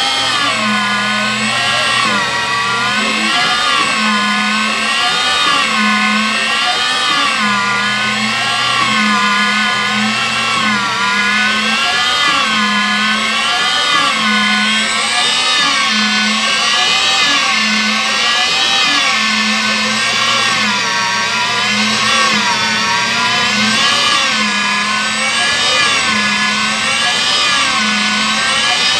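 Electric motor of an HDPE pipe butt-fusion machine running with a whine that swings up and down in pitch about every second and a half to two seconds. Under it, a low hum pulses about once a second.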